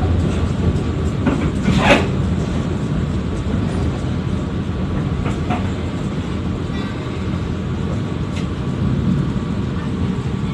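Steady low rumble of a moving passenger train heard from inside an economy-class carriage as it runs over the rails, with one brief, sharper, louder noise about two seconds in.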